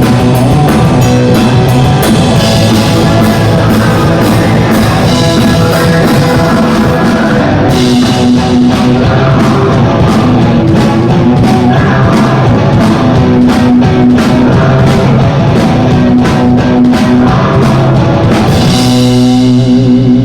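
A live band playing loud rock music: drum kit with steady cymbal strokes and guitar over held low notes.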